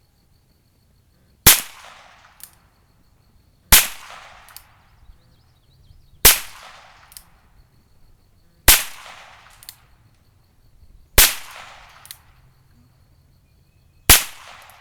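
Six single shots from a .22 LR revolver, about two and a half seconds apart, each a sharp crack that trails off in an echo, with a fainter tick just under a second after most of them.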